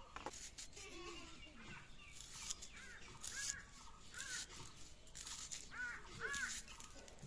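Crows cawing repeatedly, a string of short calls about a second apart through the middle of the stretch.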